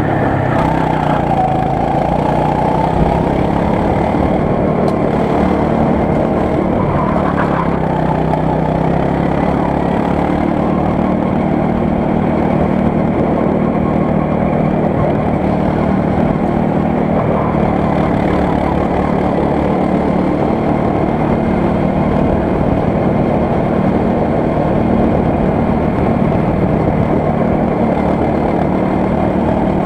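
Go-kart engine running steadily at lapping speed, heard from on board the kart, with only slight changes in pitch.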